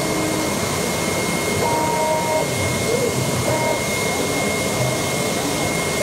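AOKE DCH-series CNC cardboard cutting table running as its tool head cuts 2 mm E-flute corrugated sheet: a steady rushing machine noise with a constant high whine, and a few short tones that come and go.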